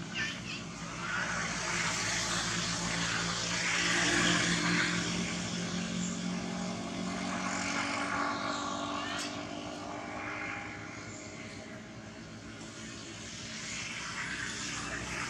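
Steady engine hum, rising to its loudest about four seconds in and then slowly fading, as of a motor passing at a distance.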